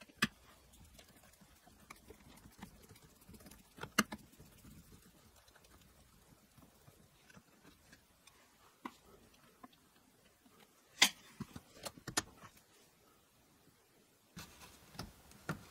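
Scattered light clicks and taps of a screwdriver taking the screws out of a Jaguar XKR's plastic dashboard trim around the instrument cluster, with a louder cluster of clicks about eleven seconds in.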